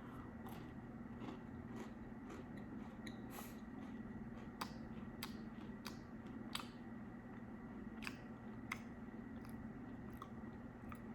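Faint chewing of a Chips Ahoy Sour Patch Kids cookie: irregular small clicks and crackles from the mouth over a steady low hum.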